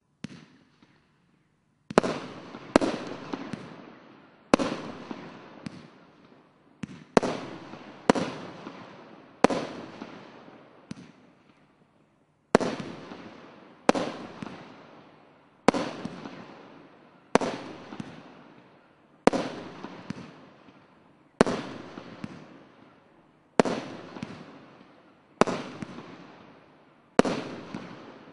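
SkyLine 'Extra Power' 30-shot firework cake firing: a faint pop near the start, then from about two seconds in a steady run of sharp bangs, roughly one or two a second, each dying away before the next.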